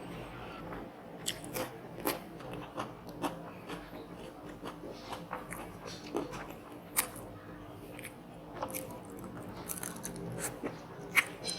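A person chewing and crunching food close to the microphone, with irregular sharp crunches throughout.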